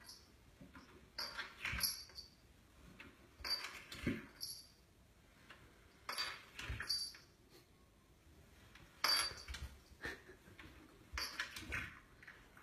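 A cat sliding down wooden stairs on its side one step at a time. Each step brings a brushing scuff of fur and body over the wood, then a soft thump as it drops onto the next tread, five times at a slow, uneven pace.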